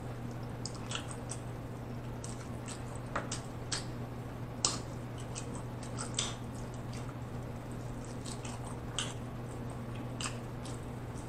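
Close-up mouth sounds of a person chewing fried chicken wing meat: wet smacks and sharp clicks at uneven intervals, over a steady low hum.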